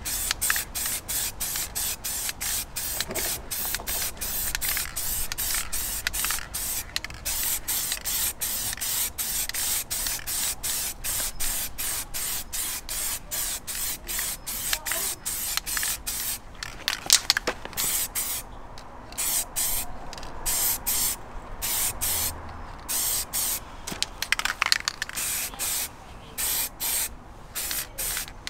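Halfords gloss black aerosol spray paint hissing from the can in short, rapid bursts, about three a second, as a coat goes onto a wheel. In the second half the bursts come with longer gaps between them, and there are a few sharper clicks.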